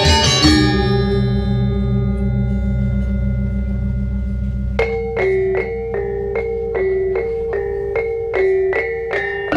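Balinese gong kebyar gamelan: the full ensemble stops about half a second in, leaving the bronze metallophones and gongs ringing over a wavering low hum. About five seconds in, a trompong, a row of bronze kettle gongs played by one player with two long mallets, begins a solo melody, its strokes moving back and forth between two neighbouring pitches, two or three a second.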